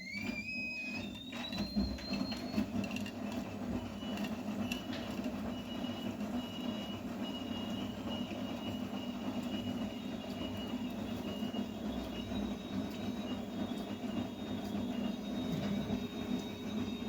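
Vestel CMI 97302 front-loading washing machine running. The drum motor's whine climbs and levels off about a second in, then the drum turns steadily with a low hum and a faint high whine.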